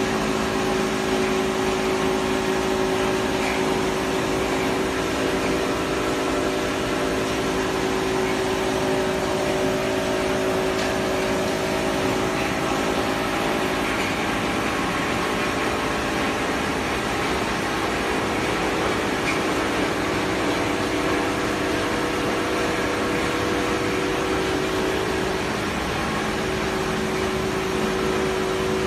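BSGH BS-N125 dry copper wire granulator running: crusher, conveyor and separator motors make a steady mechanical hum with several steady tones.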